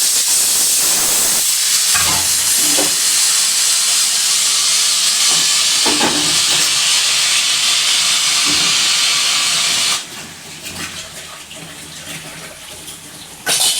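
Pressure cooker whistle letting off steam in a loud, steady hiss, the sign that the cooker has come up to pressure; it cuts off suddenly about ten seconds in. After that comes a lower hiss with light clicks, and one short loud burst near the end.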